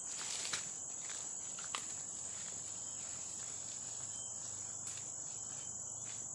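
Insects droning steadily at a high pitch, with a few brief clicks or snaps.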